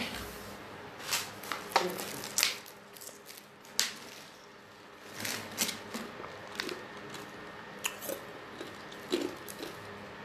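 Irregular clicks, taps and short crackly rustles of a phone being handled with its lens covered, close to its microphone.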